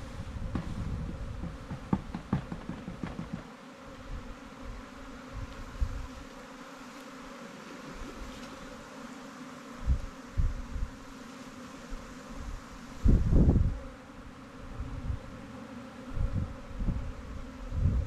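A honey bee swarm buzzing steadily, a constant hum throughout, with a few low thuds and rumbles, the loudest about two-thirds of the way through.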